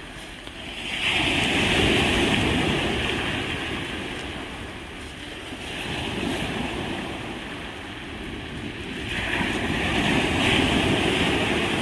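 Sea waves breaking and washing up a pebble beach, in surges: a big one about a second in, a smaller one midway, and another big one near the end.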